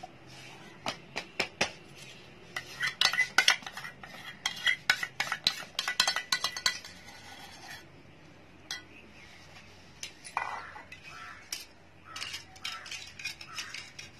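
Steel spoon tapping and scraping against a glass and a steel bowl while thick whipped coffee foam is spooned onto milk. It comes in quick runs of clinks, one through the middle and a shorter one near the end.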